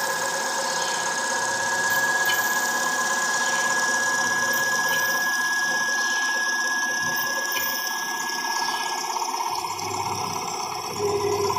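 A CNC machine's 4th-axis stepper motor spins the workpiece as a lathe, giving a steady mechanical running sound with a high whine that fades out about eight seconds in. Faint ticks come every two to three seconds.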